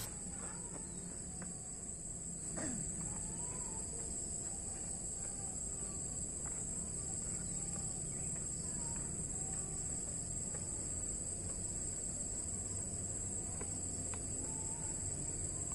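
Insects droning with a steady high-pitched whine.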